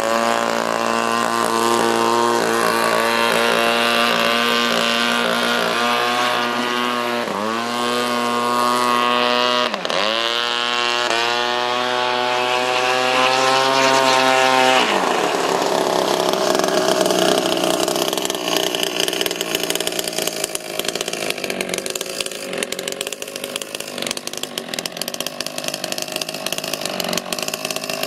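Two-stroke 26cc string-trimmer engine of a homemade RC boat running at high revs. Its pitch drops sharply and climbs back twice, as the throttle is let off and opened again. About halfway through, the steady note gives way to a fainter, rougher and more uneven sound.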